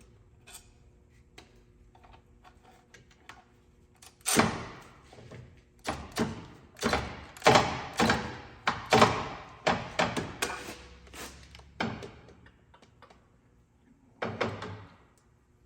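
Metal hand tools clinking and knocking against metal fittings. A run of sharp, ringing knocks, about two a second, lasts some seven seconds, and a single knock comes a little later.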